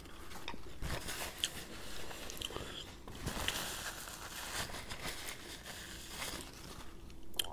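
Quiet, close chewing of crispy fried chicken with small crunches and mouth clicks, then a paper napkin crinkling as it is wiped across the mouth.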